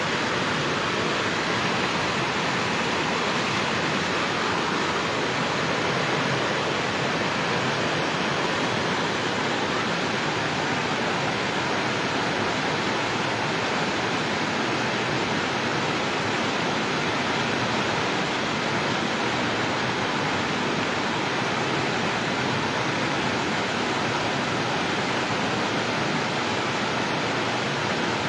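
Floodwater from the Kushiyara river rushing through a breached embankment in a strong, fast current, churning white over the bank: a steady, unbroken rush of water.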